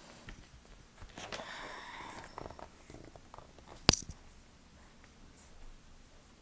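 Rustling and handling of a large picture book being lifted and held open, with one sharp click about four seconds in.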